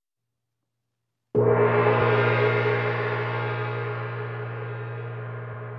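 Silence, then a large gong is struck once about a second in and rings on, its tone slowly fading.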